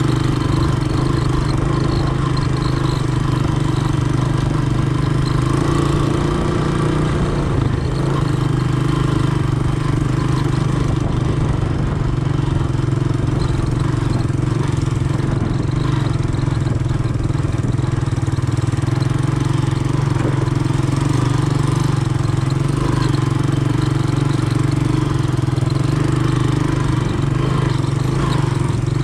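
Honda ATC 200M three-wheeler's single-cylinder four-stroke engine running at a steady, unchanging pitch.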